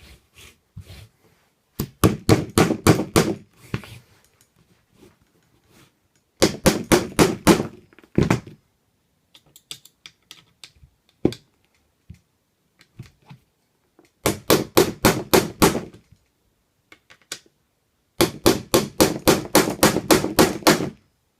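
Small hammer driving a steel roll pin into the friction-lock assembly of a Magpul MOE CTR buttstock. The taps come in four quick runs of about five a second, with short pauses and a few light clicks in between.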